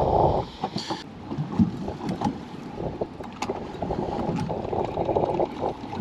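Water slapping and lapping against the hull of a drifting boat, with uneven small knocks and wind buffeting the microphone; a louder gust of wind dies down about half a second in.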